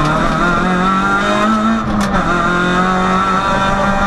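Peugeot 106 rally car engine heard from inside the cabin, pulling hard under full throttle: its note climbs steadily, dips briefly about two seconds in, then holds level at high revs.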